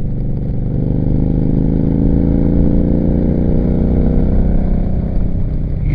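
Yamaha V-Star 950's V-twin engine accelerating hard through a Rush slip-on muffler with a 1.75 baffle, its pitch rising over the first few seconds and then holding. The exhaust is loud.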